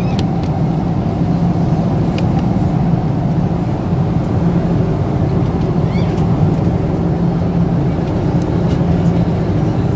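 Steady cabin noise inside a Boeing 767-300 airliner: a constant rush of air with a low engine hum underneath, and a few faint ticks.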